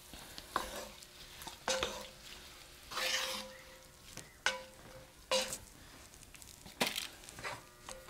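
Wooden spoon stirring diced tomatoes and softened vegetables in a hot pot, in about seven separate scrapes and pushes a second or so apart, with light sizzling.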